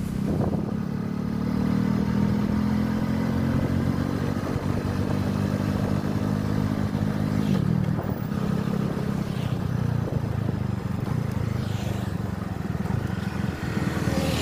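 Motorcycle engine running steadily while riding along a road, its note dipping and settling again about halfway through.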